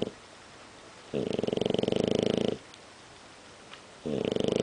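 A dozing pet snoring: two long, fluttering snores about a second and a half each, one starting about a second in and the next near the end.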